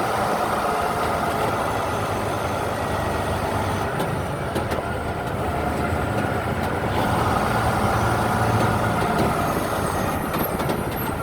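A vehicle running steadily with a low rumble and a faint steady whine.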